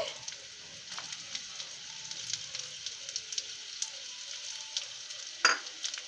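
Chopped onions, ginger and garlic sizzling steadily in hot oil in a frying pan, with small crackles. A brief louder sound comes about five and a half seconds in.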